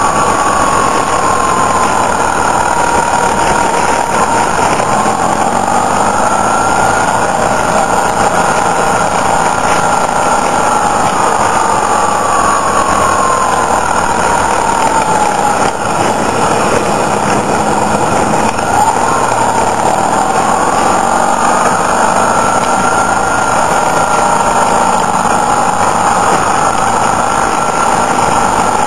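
Motorcycle engine running under way, its pitch slowly rising and falling twice as the revs change, over a steady rush of wind and road noise.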